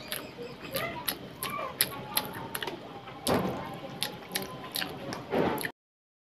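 Close-miked wet eating sounds of rice and mutton fat curry being mixed and eaten by hand: a quick run of sticky clicks and squelches, with two louder squishes. The sound cuts off abruptly near the end.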